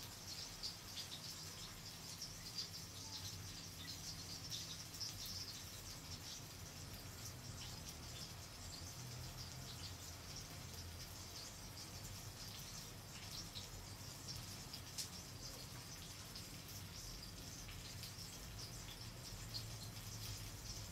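Beef pot roast browning in a pan, sizzling faintly and steadily with a fine crackle, with a few light clicks here and there.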